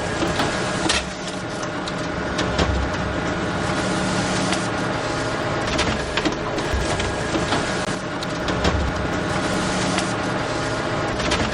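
Photocopier running: a steady mechanical whir with several held tones, scattered sharp clicks, and low thumps recurring every couple of seconds.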